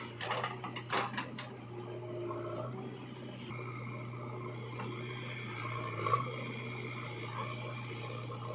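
A steady low machine hum, with a cluster of clicks and knocks in the first second and a half and a single knock about six seconds in.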